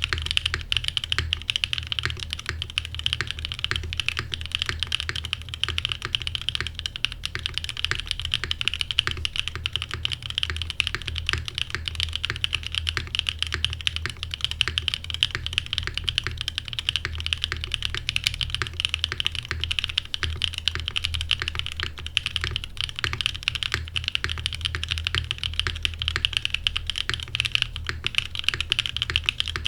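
Continuous, rapid typing on a Frog Mini mechanical keyboard fitted with Krytox-lubed Cream Soda switches on a half FR4 plate and GMK keycaps: a steady stream of key clacks.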